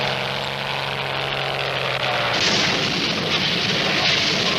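Cartoon airplane engine sound effect: a steady low droning hum under noise, which swells into a louder rushing roar about two and a half seconds in.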